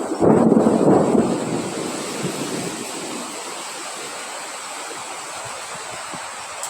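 Wind blowing, with a strong gust swelling in the first second or so, then settling into a steady rush.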